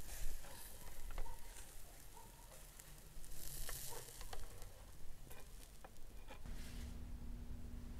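Minced-meat kebabs sizzling on flat metal skewers over a charcoal grill, with scattered clicks as the skewers are turned by hand. A low steady hum comes in about six and a half seconds in.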